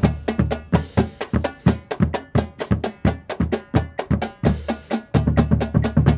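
Drumline battery of marching snare, tenor and bass drums playing a rebound warm-up exercise together: rapid, evenly spaced stick strokes, several a second, with low bass drum notes underneath.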